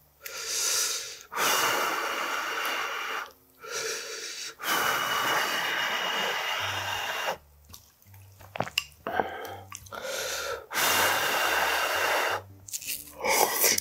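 Close-miked eating sounds over hot whelk soup: three long, breathy mouth sounds of two to three seconds each, as hot food is blown on and slurped. Between them come short wet chewing clicks.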